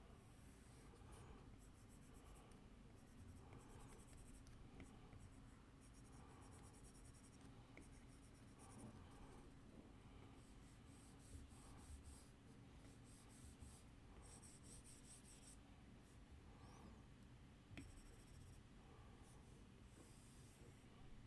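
Faint strokes of a stylus drawing on an iPad's glass screen, in short bursts with pauses between them, over near silence.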